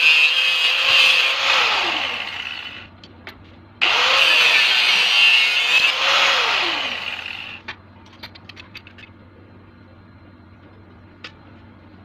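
Angle grinder running, switched off and spinning down with falling pitch, started again about four seconds in, then switched off to spin down once more. A few light clicks follow.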